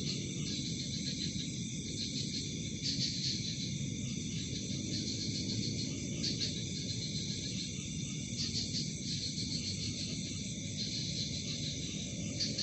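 Night insects chirping in a steady chorus, with louder pulses every second or two, over a steady low rumble.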